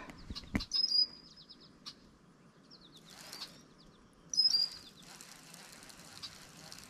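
A songbird singing a short, high chirping phrase of quick falling notes twice, about three and a half seconds apart. There are a few sharp clicks just before the first phrase.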